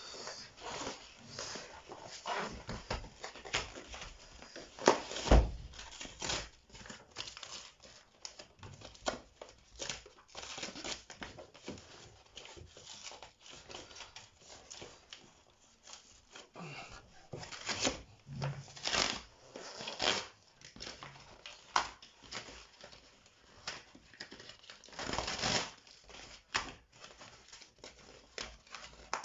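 Cardboard packaging of a flat-pack wardrobe being opened and handled: irregular tearing, rustling and scraping of cardboard, with a heavier knock about five seconds in.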